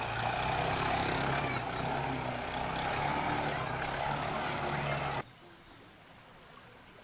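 Three-wheeled CNG auto-rickshaw engine running as it drives through floodwater, with the rush of water around it. The sound cuts off suddenly about five seconds in, leaving only faint flowing water.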